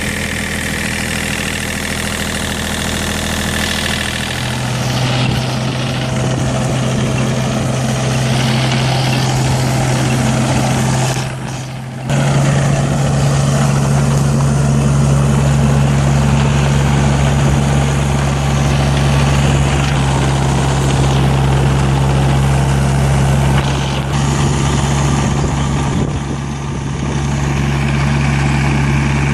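Hitachi ZX35U mini excavator's diesel engine running steadily. Its pitch steps up about four seconds in, and after a brief dip near twelve seconds it runs higher and louder.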